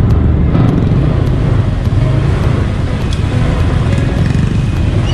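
Yamaha Mio Sporty scooter under way in traffic, its small engine running under a steady low rumble of wind and road noise.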